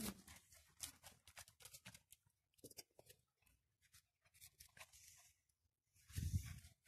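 Faint, scattered clicks and scratches of German Shepherd puppies' claws and paws on concrete paving as they play. About six seconds in, a louder short rustle and bump as a puppy brushes against the microphone.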